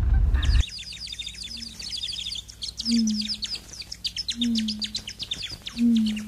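Small birds chirping in a dense, fast chorus of quick falling chirps, with a low short note repeating about every one and a half seconds. For about the first half second there is car road rumble, which cuts off abruptly.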